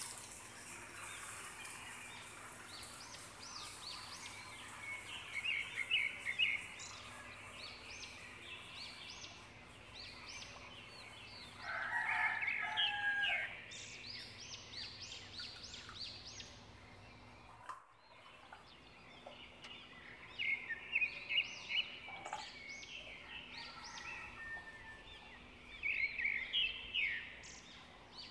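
Chickens calling, with a louder, longer call about twelve seconds in, and small birds chirping, over a faint steady hum that briefly cuts out about eighteen seconds in.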